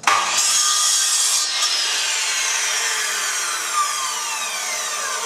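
Electric chop saw: a sudden loud start, then a whine that falls steadily in pitch as the blade spins down after cutting the end off a maple bat.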